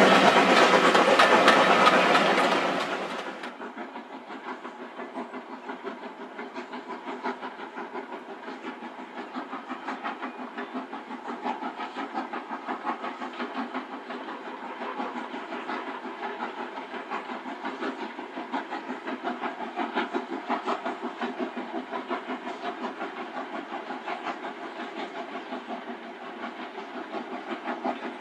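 Steam train. For the first three seconds, carriages pass close by with a loud rumble and clatter. Then, heard from far off, a steam locomotive runs along the line with a steady, rapid chuffing of exhaust beats.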